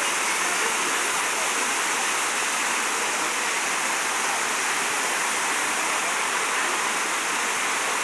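Water cascading down an artificial rock waterfall into a pool: a steady, unbroken rushing.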